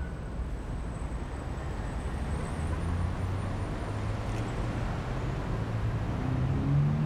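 City street traffic: the steady noise of cars running and passing, with a vehicle growing louder near the end.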